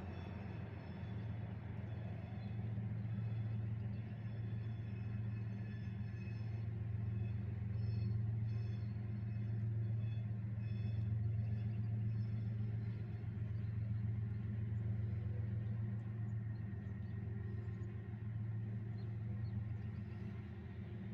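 Diesel locomotive engine working, a steady low drone that swells slightly midway and eases toward the end.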